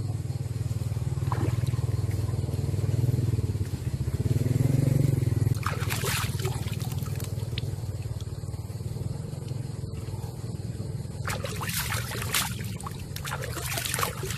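Hands splashing and sloshing a freshly cut-open rat in shallow ditch water, a cluster of splashes about six seconds in and more near the end, over a steady low engine hum.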